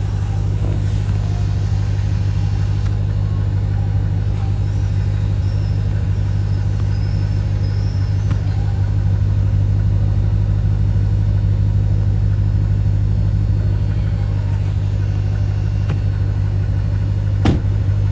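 Steady low hum of a running vehicle engine, heard from inside the car, with one sharp knock near the end.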